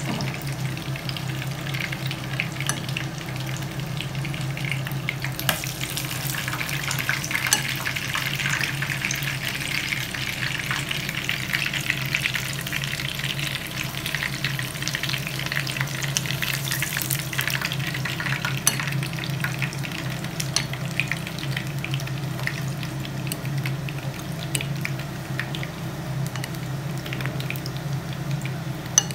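Batter-coated balot eggs frying in hot oil in a pan, a steady sizzle with many small crackles and pops, busiest midway. A steady low hum runs underneath.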